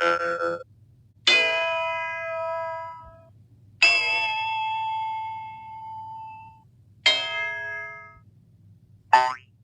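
A series of cartoon metallic clang and ding effects, each struck once and then ringing away. The second rings longest, with a wavering tone. A short effect with a quickly rising pitch comes just before the end.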